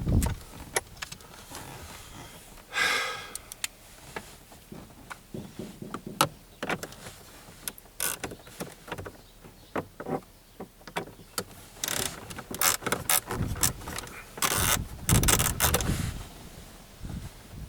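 Hand tools and loose metal parts clicking and clattering during work on a car's dashboard, with a short squeak about three seconds in and a denser run of clicks and knocks in the second half.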